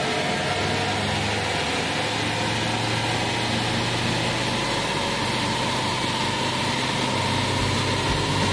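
Toyota Hilux 2.5 D-4D four-cylinder turbo-diesel running hard on a chassis dynamometer during a power run, with its pitch rising slowly as the revs climb, over the noise of the tyres turning on the rollers.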